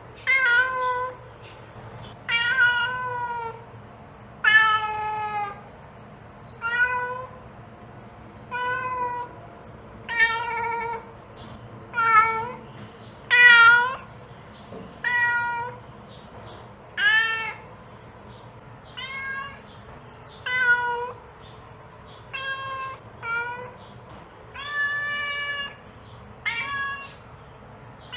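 Mother cat calling her kittens: a cat meowing over and over, one short call about every one and a half to two seconds, some calls bending up and then down in pitch.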